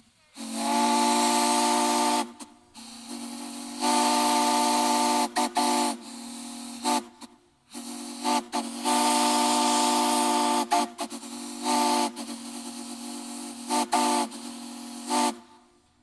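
Steam whistle blown by a pull cord, sounding a chord of several low notes over a hiss of steam. It gives a string of blasts, three long ones and several short toots, and drops to a softer, partly open sound between them.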